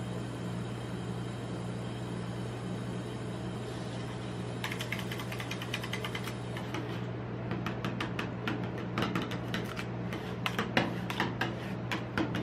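Metal spatulas tapping and scraping on a frozen steel ice-cream pan as coconut pieces are chopped into the cream base. The taps start about four seconds in and come faster and louder towards the end, over a steady low hum.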